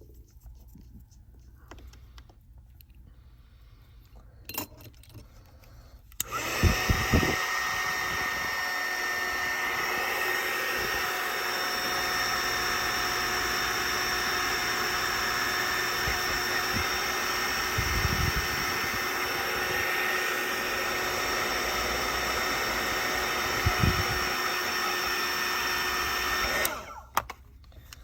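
A handheld hot-air blower switched on about six seconds in, running with a steady whoosh and a fixed fan whine, and switched off near the end. A few low knocks of handling come during it, and faint small clicks come before it.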